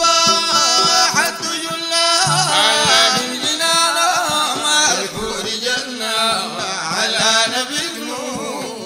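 Background music: an Arabic devotional song in praise of the Prophet (madeeh), a male voice singing with instrumental accompaniment, the melody winding up and down.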